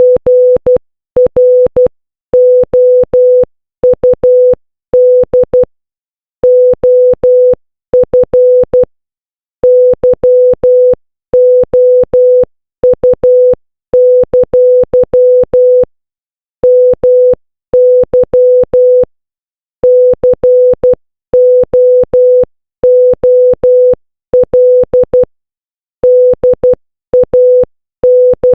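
Morse code beeps: a single steady mid-pitched tone keyed on and off in short dots and longer dashes, grouped into letters with brief pauses between them, each beep starting and stopping with a faint click.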